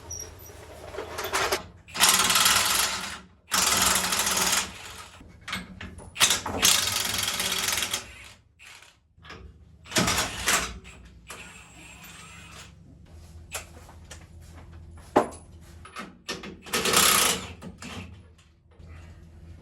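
Impact wrench running in several bursts of one to two seconds, zipping bolts off the truck's rear parts. Quieter clanks of tools and parts come between the bursts.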